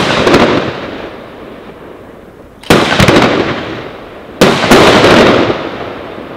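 Aerial fireworks bursting overhead: two sharp bangs, about a second and a half apart near the middle, each trailing off in a rumbling echo, following the fading tail of a bang just before.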